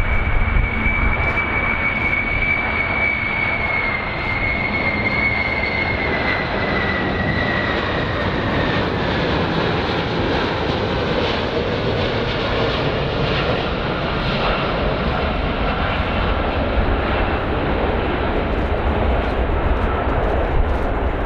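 Boeing VC-25A (747-200) jet's four turbofan engines on landing approach: a steady deep rumble with a high engine whine that slowly falls in pitch as the aircraft passes.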